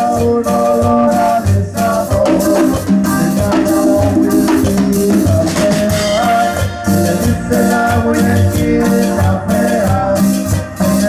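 Live cumbia band music with an electric guitar playing the lead melody over bass, chords and percussion keeping a steady beat.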